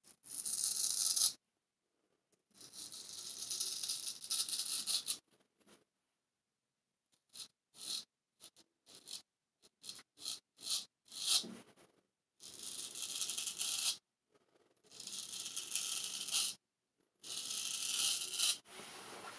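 Person Special Solingen straight razor scraping through lather and stubble on the neck. Two long strokes, then a run of short quick strokes, then longer strokes again, each with silence between.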